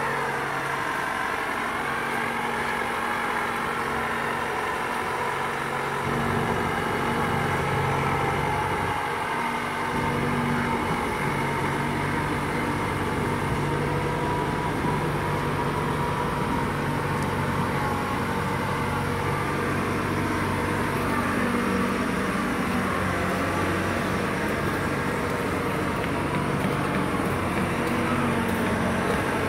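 Engine of a mobile boat hoist (travel lift) running steadily as it drives slowly with a fishing boat slung beneath, its pitch shifting slightly a few times, with a high whine over the engine.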